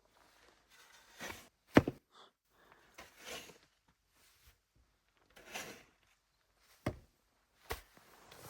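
A few sharp knocks and thuds, the loudest about two seconds in and two more near the end, with soft rustling and shuffling between: someone moving about and handling things in a small room.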